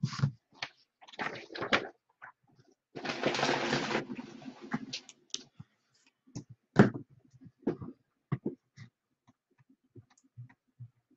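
Scattered light clicks and taps, with a short rush of noise about three seconds in.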